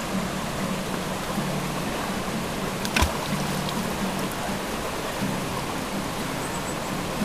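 Shallow, rocky mountain creek flowing steadily over boulders, with one sharp knock about three seconds in.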